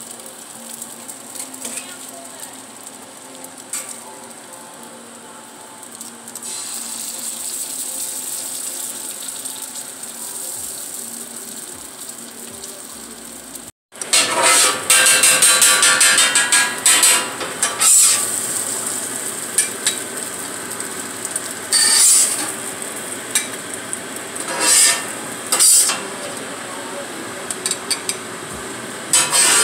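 Eggs frying on a steel flat-top griddle, a steady sizzle. After a sudden cut, metal spatulas scrape and chop scrambled eggs against the steel plate in loud, repeated strokes.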